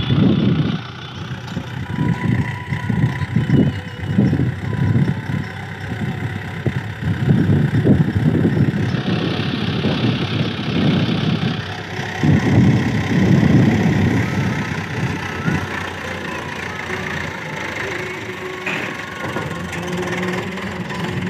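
HMT 7511 tractor's diesel engine working under load as its front dozer blade pushes soil, the engine sound rising and falling unevenly.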